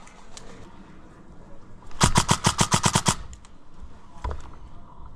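Airsoft gun firing a rapid full-auto burst of about ten shots in a second, followed by a fainter single shot and another loud single shot near the end.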